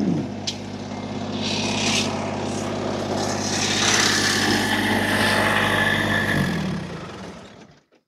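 Massey Ferguson subcompact tractor's diesel engine running steadily, then winding down and shutting off about six and a half seconds in, the sound dying away within a second.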